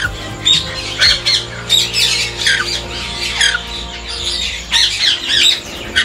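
Conures squawking: a rapid run of short, harsh screeches, about two a second, over a steady low hum that stops about five seconds in.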